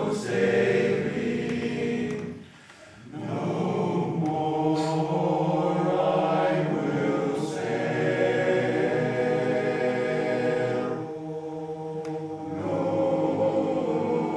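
Men's barbershop chorus singing a cappella in close harmony, holding sustained chords. The singing stops briefly for a breath about two and a half seconds in, and drops softer for a moment about eleven seconds in.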